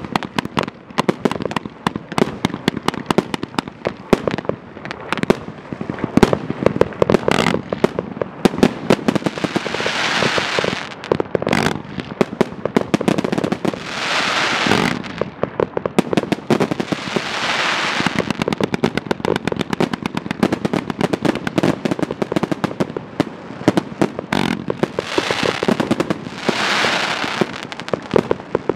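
Dun Pai 100-shot professional 1.3G firework cake firing a rapid, continuous barrage of shots and shell bursts. Several swells of hissing rise over the volley along the way.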